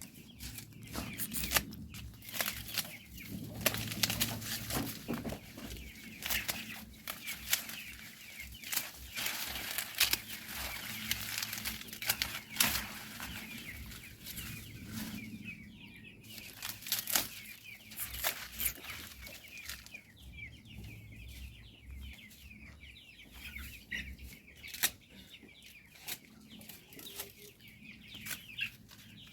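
Chickens clucking, with frequent sharp clicks and rustles, busiest in the first two-thirds.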